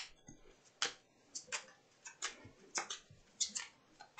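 Oracle cards being shuffled by hand: a string of faint, irregular clicks of cards slapping against each other.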